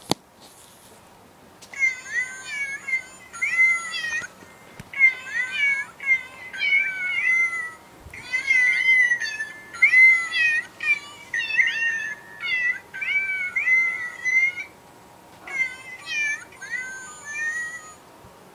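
Musical birthday card playing a birthday tune sung in recorded cat meows through its small speaker, in short phrases with brief pauses. A sharp click comes just before the tune starts.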